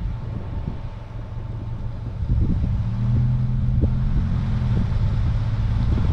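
Car being driven, heard from inside the cabin: engine and road drone with irregular low buffeting of wind on the microphone. About two seconds in the drone grows louder and settles into a steady hum.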